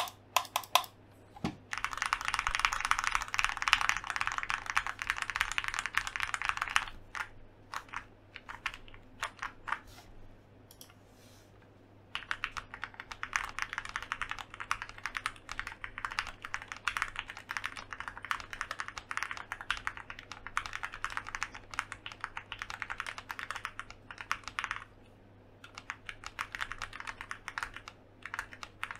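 Ergonomic-layout mechanical keyboard with lubed Gateron Black Ink V1 linear switches, a polycarbonate plate, foam and PBT keycaps being typed on quickly, in long runs of rapid keystrokes. The typing slows to a few scattered keys and stops for about two seconds a third of the way in, then resumes, with another short pause near the end.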